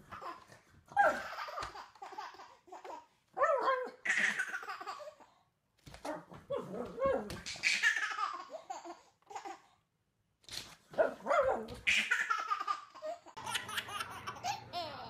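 A baby laughing in repeated short bursts, mixed with a pug's barks as it plays. Near the end a different baby laughs continuously over a steady low hum.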